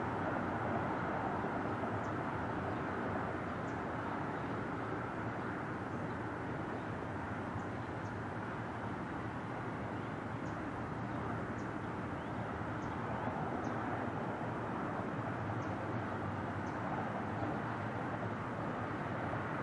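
Boeing 777 jet engines on landing approach, heard from far off as a steady rumble. Faint short bird chirps come through above it now and then.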